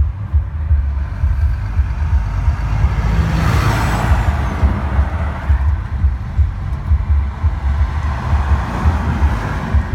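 Motor vehicle noise: a low, uneven rumble throughout, with a louder swell that rises and fades about three to five seconds in.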